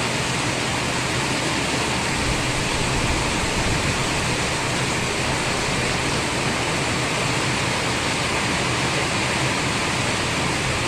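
Heavy rain falling, a steady, even rushing hiss.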